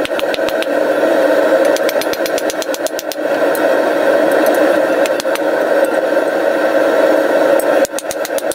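A steady mechanical drone, like a small motor running, joined in stretches by rapid, even clicking at about seven a second: at the start, a few seconds in, and again near the end.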